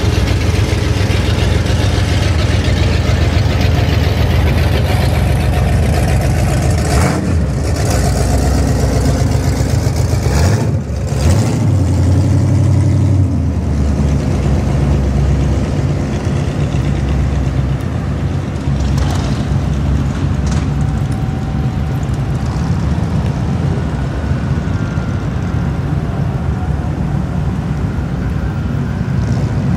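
Engines of classic cars driving slowly past one after another, a steady loud low running sound, swelling as one car passes close about eleven seconds in.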